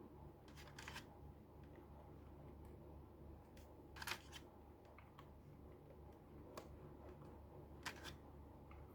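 Four or five faint, sharp plastic clicks and taps spread over several seconds, from mechanical keyboard parts being handled and fitted during assembly, over a steady low hum.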